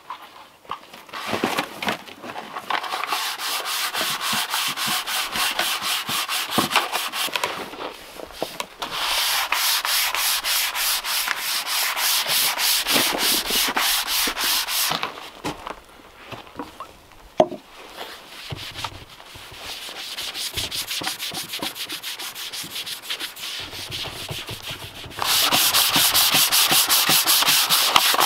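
Hand sanding cherry wood with sandpaper: quick, rhythmic back-and-forth scratchy strokes, broken by short pauses. The strokes are softer in the middle and louder near the end.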